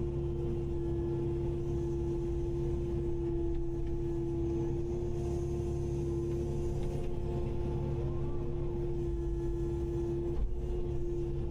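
Kubota KX080-5 excavator running steadily, a low engine drone with a strong steady hum above it that shifts slightly about ten seconds in.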